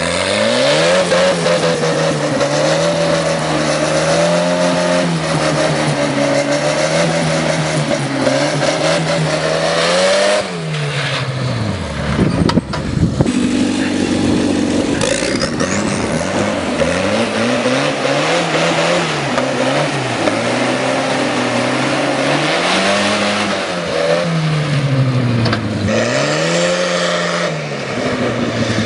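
Turbocharged tractor engine revving hard. It is held at high revs for about the first ten seconds, drops, then is revved up and down repeatedly, its pitch rising and falling every couple of seconds.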